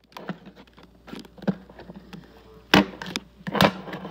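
Hard plastic clicking and knocking as the dust bin is worked out of an iLife A5 Pro robot vacuum: a run of small clicks, then two sharp knocks close together near the end.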